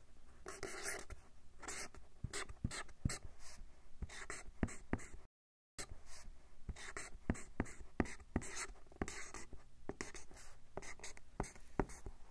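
Dry-erase marker squeaking and scratching across a whiteboard in quick short strokes while lettering and drawing, with a brief total dropout about five seconds in.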